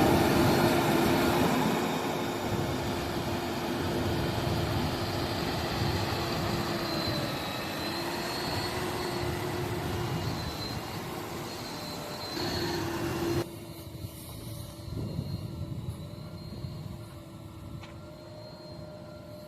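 Diesel engines of a backhoe loader and tractors running steadily while soil is loaded, with a steady whine over the engine noise. The sound drops suddenly to a quieter level about thirteen seconds in.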